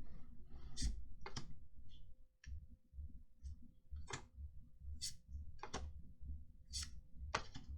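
Trading cards being flipped through by hand, giving a handful of short, crisp clicks and snaps at irregular intervals.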